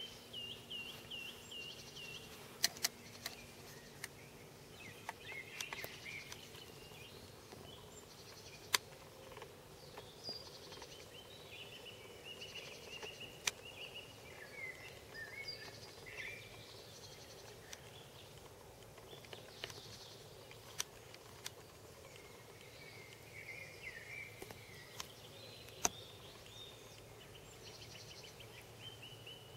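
Small birds singing and chirping in quick warbling phrases, with a dozen or so sharp clicks scattered through. A faint steady low hum runs underneath.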